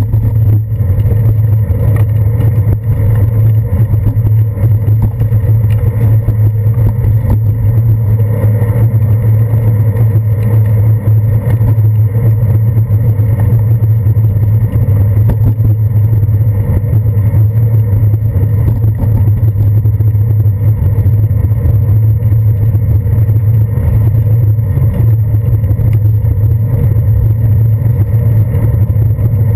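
Loud, steady low rumble of wind buffeting and road vibration picked up by a handlebar-mounted GoPro Hero 2 in its waterproof housing as the bicycle rolls over wet pavement.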